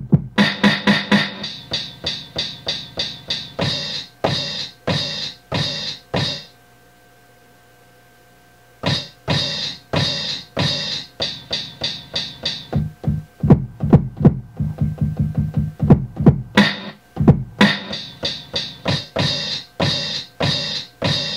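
Drum samples played from the pads of a Native Instruments Maschine MK3, a fast run of sharp hits at about four a second. They stop for about two seconds a third of the way in, then start again.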